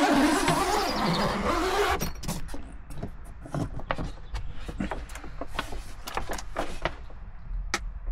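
Zip on a fabric camping cupboard pulled open, a rasp rising in pitch that stops abruptly about two seconds in. Then fabric rustling with many light clicks and taps as the flap is pushed aside.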